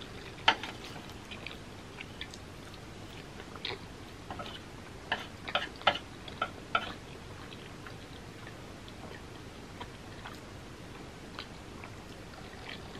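Chopsticks clicking and scraping against a metal baking sheet while the last bits of noodles are picked up, with soft chewing in between. The clicks are scattered, with a quick run of them about five to seven seconds in.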